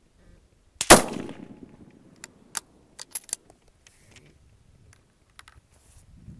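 A single shot from a Stevens 200 bolt-action rifle in .223 firing a handload, about a second in, with a short echoing tail. It is followed over the next few seconds by a string of sharp metallic clicks as the bolt is worked.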